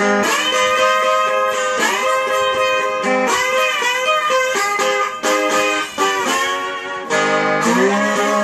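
Electric guitar played with a slide in open G tuning: a slide-blues intro of plucked notes and chords, with the pitch gliding up and down between some of them.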